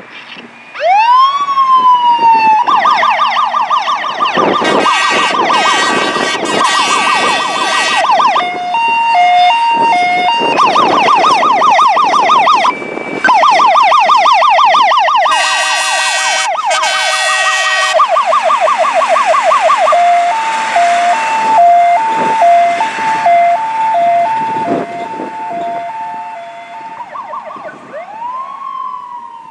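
Siren of a 1975 Ford C8000 Thibault aerial ladder truck cycling through its tones: a wail rising about a second in, long runs of fast yelp, and stretches of alternating hi-lo. Blasts of the truck's air horns sound over the yelp twice in the middle. Near the end the siren slides down into a falling wail and fades as the truck pulls away.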